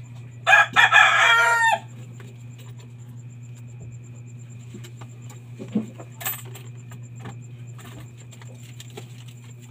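A rooster crowing once, a loud call of about a second and a half starting half a second in. A steady low hum runs underneath, with a couple of short knocks about six seconds in.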